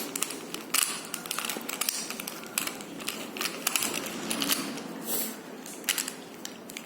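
Plastic Rubik's cube layers clicking and clacking as they are turned fast, an irregular run of many short clicks.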